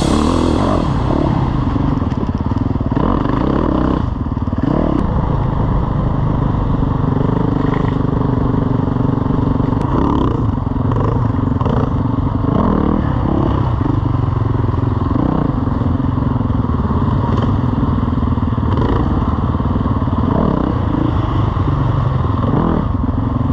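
Dirt bike engine running under way, its pitch rising and falling repeatedly as the throttle is opened and closed.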